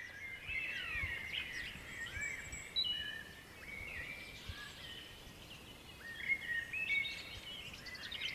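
Birdsong: small birds singing overlapping chirps and quick whistled phrases over a faint outdoor background.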